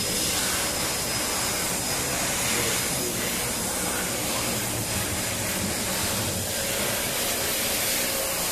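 A steady hiss at an even level, with a faint low hum beneath it.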